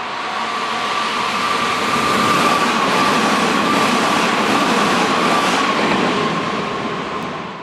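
An electric commuter train passing over a level crossing, its wheels and running noise swelling about two seconds in and fading near the end. The crossing's warning bell keeps ringing as a steady tone throughout.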